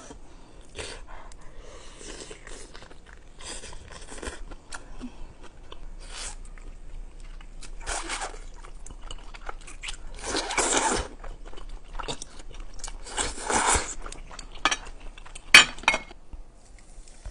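Close-up eating sounds: crunchy bites of bok choy and slurps and chewing of wide Chinese glass noodles in a spicy sauce, with a few louder slurps in the second half.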